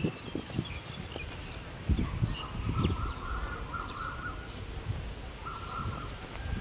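Small birds chirping and twittering over a low background rumble, with a couple of low thumps about two and three seconds in.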